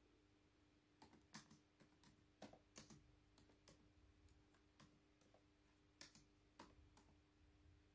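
Faint typing on a laptop keyboard: irregular key clicks starting about a second in, over a low steady hum.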